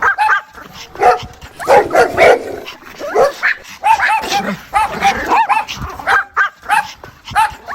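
A dog making rapid series of short, high whines and yips, with louder, lower barks about two seconds in: the sounds a mother dog makes to call her puppies.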